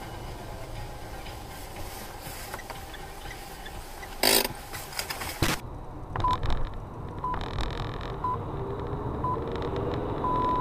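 Steady low road noise inside a car, with a short loud hiss about four seconds in. After that come short high electronic beeps about once a second, four of them, then a longer beep near the end.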